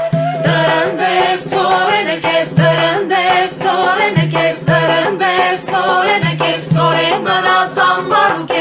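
Armenian folk music: voices singing together over a steady low drone, with a regular beat.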